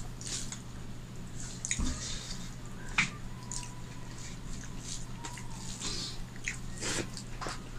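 Fingers mixing cooked rice and fish curry on a steel plate, with eating and chewing mouth sounds. Many small wet clicks run throughout, with sharper ones about three seconds in and near the end.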